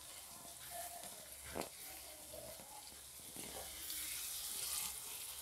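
Tomato-onion gravy sizzling faintly in a nonstick pan as a silicone spatula stirs it, with a soft scrape or two; the sizzle grows a little louder about four seconds in.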